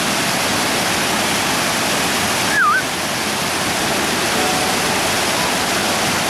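Mountain stream rushing over rocks in small cascades: a steady, loud wash of water. About two and a half seconds in, a brief whistle-like note dips and rises over it.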